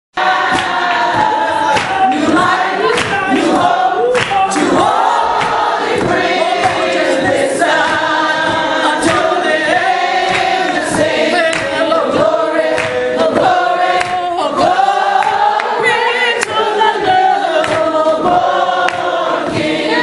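Church congregation singing together, many voices at once, with sharp hand claps through the singing.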